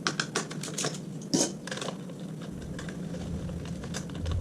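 Ratchet and 10 mm socket clicking in quick, irregular runs of ticks as a nut is undone; the clicking thins out about halfway through.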